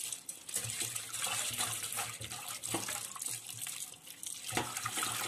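Rice and chana dal being rubbed and swished by hand in a bowl of water to wash them, with uneven splashing and sloshing.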